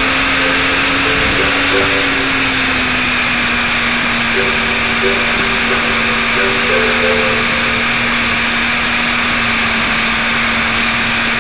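Small electric RC car's motor and gears whirring steadily under a constant hiss, heard through its onboard FPV camera, with a low hum that rises slightly and settles back in the first two seconds.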